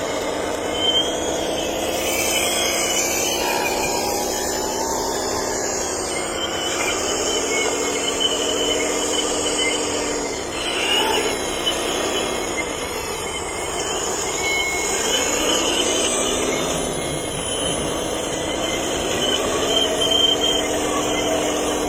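Radio-controlled hydraulic excavator's pump whining steadily, its pitch dipping and rising again several times as the load on the hydraulics changes.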